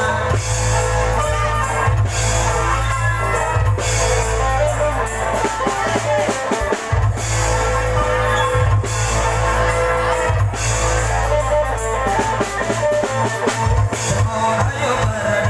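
Loud band music with drum kit and guitar over a heavy, steady bass.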